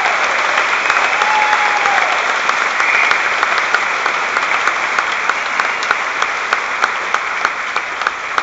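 Large audience applauding: dense, sustained clapping that eases off slightly near the end.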